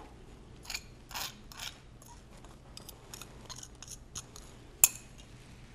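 A spoon scraping dried chili and spices off a small plate into a bowl of shredded cassava: a few faint, short scrapes, then one sharp clink of the spoon on the plate near the end.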